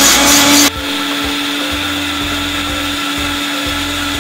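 Electric mixer-grinder (mixie) running on high speed, whipping chilled fresh cream in its jar. Its hum rises in pitch at first, then just under a second in the sound drops a little and settles into a steady whine.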